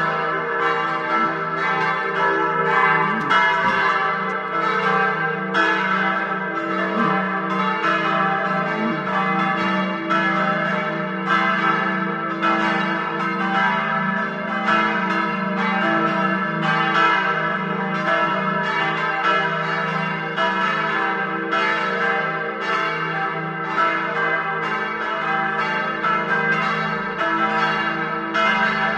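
Full peal of four swinging church bells tuned e' g' a' c'', ringing together. Their strikes overlap in a continuous, steady peal of several strokes a second over a sustained hum.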